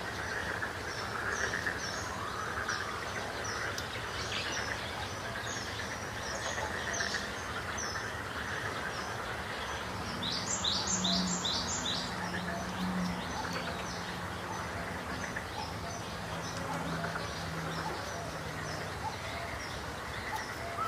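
Small birds chirping: many short high chirps, with a quick run of four louder chirps about halfway through. A faint low drone comes and goes underneath.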